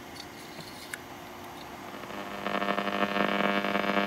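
Schaub Amigo III radio under repair, its speaker giving a steady buzzing hum with many overtones. The hum comes in a little after two seconds and grows louder; before that there is only faint hiss and a small click.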